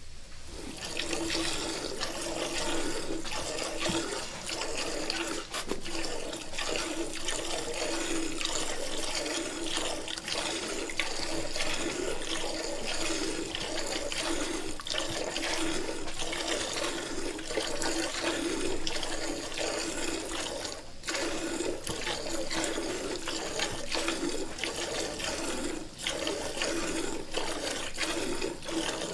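Milk pouring and splashing in a steady stream, breaking off briefly twice in the last third.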